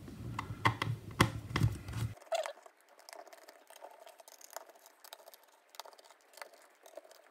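Scattered light clicks and taps of small screws and a pentalobe screwdriver being handled on a MacBook Air's aluminium bottom case. The taps are sharper in the first two seconds and fainter after that.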